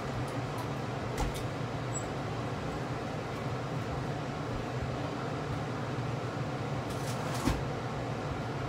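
A steady low mechanical hum, with a light knock about a second in and another near the end.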